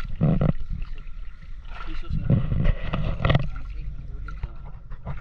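Paddle strokes and water sloshing along the hull of a small outrigger canoe being paddled, coming in uneven surges.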